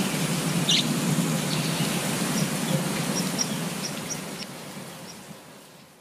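Steady rain on foliage, with a few short bird chirps over it: one about a second in and several quick high ones in the middle. The sound fades away over the last two seconds.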